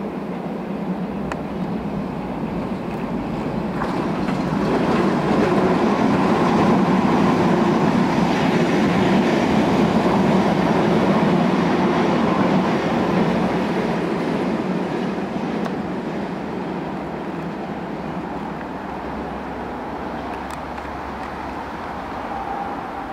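London Underground Piccadilly line 1973 Tube Stock train running past at speed, its wheels rumbling on the rails. The sound builds over a few seconds, stays loud for several seconds, then slowly fades as the train draws away.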